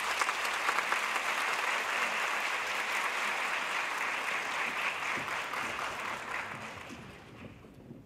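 Theatre audience applauding, many hands clapping at once, dying away over the last second or two.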